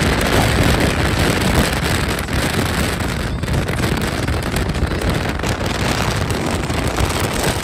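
Outdoor wind buffeting a phone microphone: a loud, continuous rumbling rush with irregular gusts.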